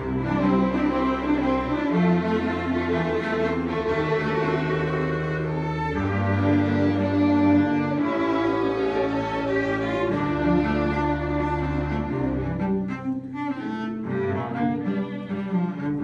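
A string ensemble of violins, cello and double bass playing together, with held bass notes that change about every two seconds. The music thins and drops in level briefly about thirteen seconds in.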